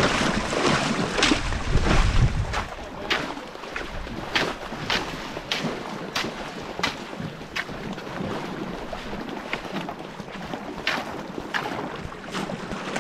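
Regular paddle strokes from a two-person marathon racing canoe at race pace, a sharp splash a little under twice a second. Wind buffets the microphone, heaviest in the first few seconds.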